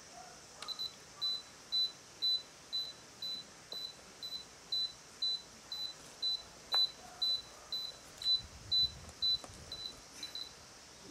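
An electronic beeper giving short, high-pitched beeps at a steady rate of about two a second, stopping near the end.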